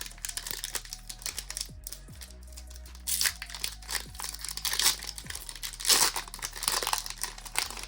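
Foil booster-pack wrapper of a Pokémon card pack being torn open and crinkled by hand, with the loudest bursts of crinkling about three seconds in and again around six to seven seconds.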